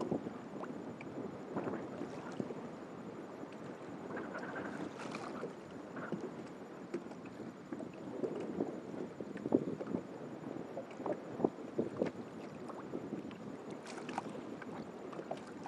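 Water splashing and lapping against a kayak hull as it moves, with scattered light knocks and some wind on the microphone.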